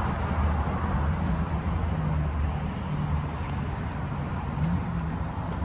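Low steady rumble of vehicle engines and street traffic, with a faint engine hum underneath.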